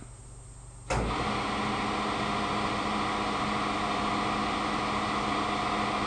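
Grob traveling-head band saw switched on about a second in, its motor and band drive then running steadily with an even, constant tone.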